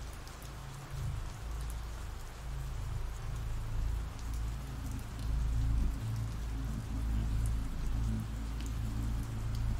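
Steady rain falling, an even patter of raindrops.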